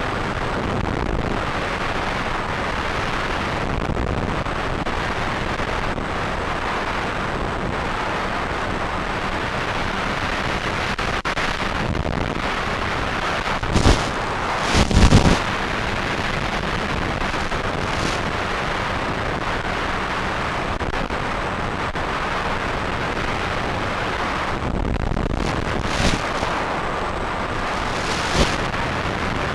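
Steady rushing wind noise on a moving onboard camera's microphone, with a few short, loud buffets or bumps: two about halfway through and two more near the end.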